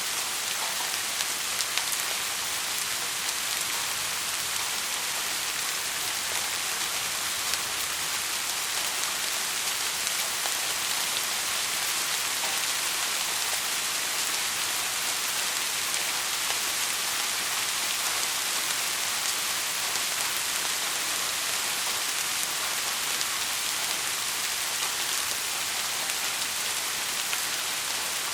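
Heavy rain falling steadily: an even, high hiss with scattered individual drops ticking through it.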